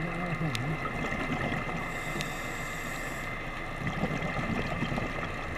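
Scuba diver breathing through a regulator, heard underwater over a steady faint hum: an inhale hisses through the demand valve about two seconds in, then exhaled bubbles rumble near the end.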